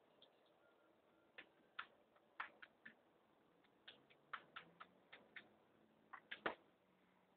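Faint, irregular light slaps and pats of a hand on a short-coated greyhound's back and flanks: about fifteen sharp smacks, the loudest near the end.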